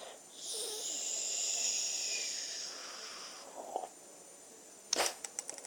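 A long breathy hiss that slowly sinks in pitch over about three seconds. Near the end comes a quick run of sharp little clicks, like small plastic parts snapping.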